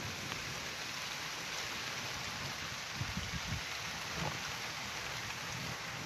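Steady rain falling, an even hiss of drops, with a few brief low bumps in the middle.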